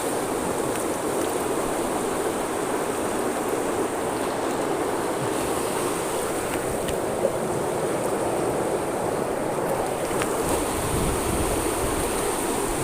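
Fast-flowing river water rushing steadily in a swift current.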